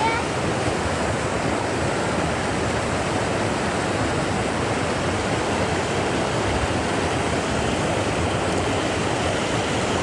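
Rocky mountain stream rushing steadily as whitewater over and between boulders in a small cascade.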